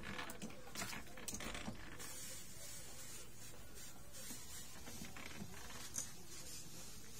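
Backpack sprayer's wand hissing in short, intermittent bursts of spray, most often in the first two seconds, with a single sharp click about six seconds in.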